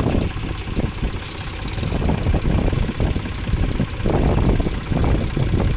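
Diesel engines of two tractors, a Mahindra 275 and an Eicher 485, running, the level rising and falling unevenly.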